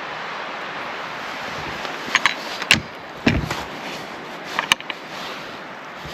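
Wind blowing steadily across the microphone, with a few sharp clicks and knocks between about two and five seconds in.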